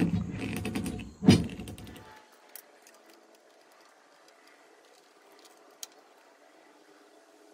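Metal frame rods of a lawn sweeper hopper rattling and knocking against each other and a plastic bracket as they are pushed together, with one sharp knock about a second in. After about two seconds it drops to near silence with a couple of faint clicks.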